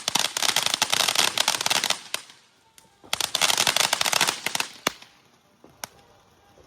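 Fireworks crackling in rapid strings of pops: one barrage lasting about two seconds, a short pause, a second barrage of about a second and a half, then two single sharp bangs a second apart.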